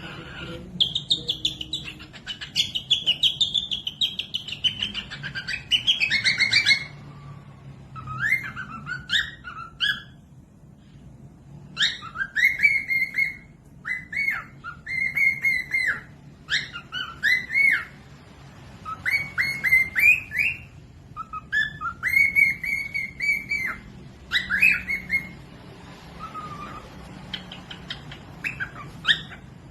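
Small pet parrot calling in bouts of quick, repeated whistled chirps that rise and fall in pitch, with short pauses between the bouts.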